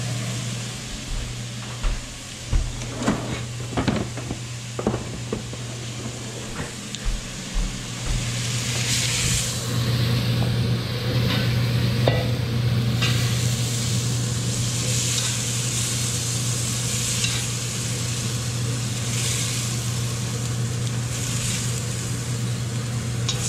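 Chunks of squash, zucchini and eggplant sizzling in hot oil in an enamelled cast-iron Dutch oven as they are added and stirred with a spatula. There are several sharp knocks in the first eight seconds, then the sizzle swells in waves. A steady low hum runs underneath.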